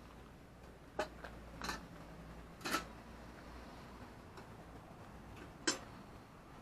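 Four sharp clicks or pops, spaced unevenly, over a faint steady low hum.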